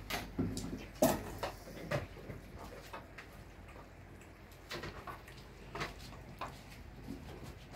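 Scattered clicks and knocks of cats feeding at plastic and metal food bowls, the loudest knock about a second in.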